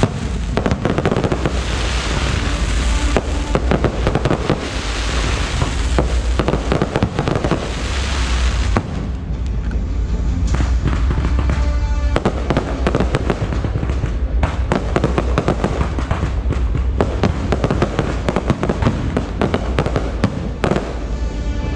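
Aerial fireworks shells bursting overhead in a dense, continuous barrage of bangs and crackle over a deep rumble.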